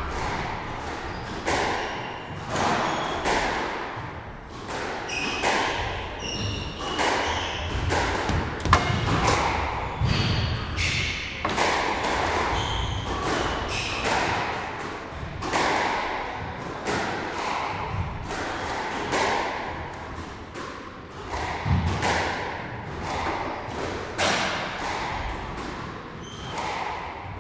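Squash rally on another court: irregular hollow thuds of the ball off the walls and racket strikes, several a second, with short high squeaks of court shoes on the wooden floor.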